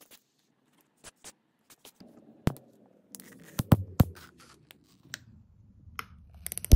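Small tools being handled over a cloth car headrest during an electrostatic flocking repair: scattered sharp clicks and light scratching, with a low hum joining about two seconds in. A quick run of clicks near the end is the loudest part.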